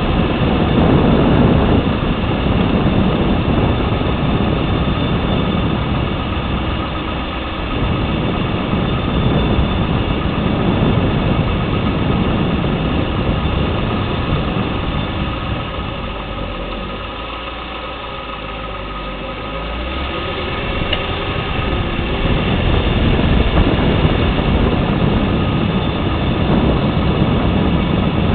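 2010 Lexus LS 460L on the move: steady road and engine noise that eases off about two-thirds of the way through and builds again near the end.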